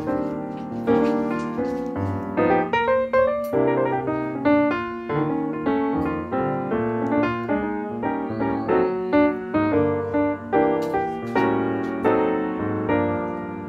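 Background instrumental music: a melody of short, quick notes over a steady lower line.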